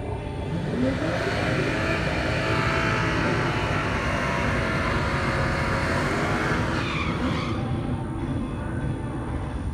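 Drag race car engine revving up and running hard at high revs for about seven seconds, then dropping away.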